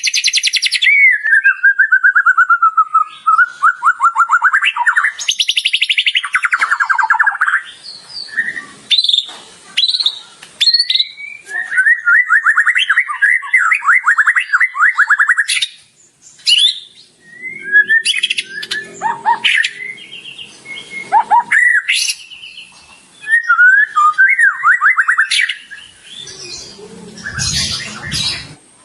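White-rumped shama (murai batu) in full song, working through its repertoire of mimicked calls of other birds: fast rattling trills, sharp whistles that swoop up and down, and short chattering phrases, with a few low buzzy notes in the middle.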